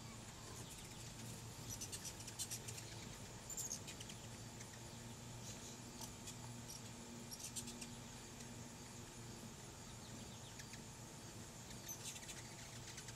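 Hummingbirds chittering: quick runs of high, dry chip notes in several short bursts, the loudest about two and a half seconds in.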